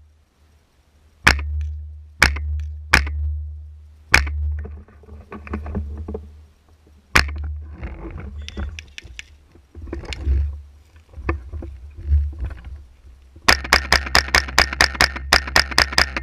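Semi-automatic .22 rifle firing: five single shots a second or more apart, then near the end a rapid string of about a dozen shots, roughly four or five a second.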